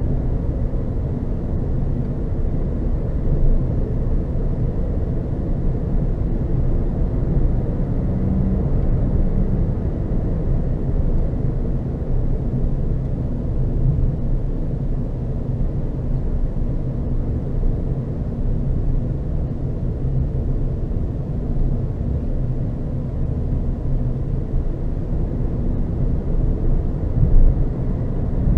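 Renault Zoe electric car driving along a road: a steady low rumble of tyres and wind, with no engine note.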